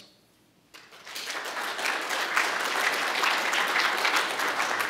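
Audience applauding: the clapping starts about a second in after a moment of near silence and quickly builds to steady applause from many hands.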